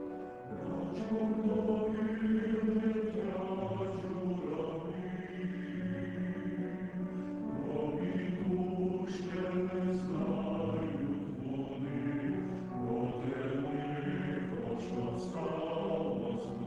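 Male choir singing slow, sustained chords, the notes held for a second or two each.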